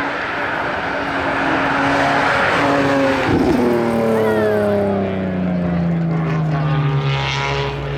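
Racing car engine running hard at high revs as the car goes past. Its note falls steadily over the last few seconds as it pulls away.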